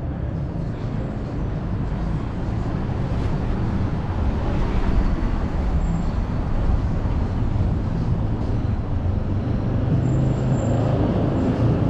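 City street traffic: a minibus and a car drive past, a steady mix of engine and tyre noise that grows a little louder about four seconds in.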